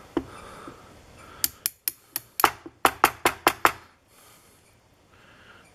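A quick run of about a dozen sharp metallic clicks and taps from small lock parts and a metal tool being handled on the bench, bunched together in the middle, each with a brief ring.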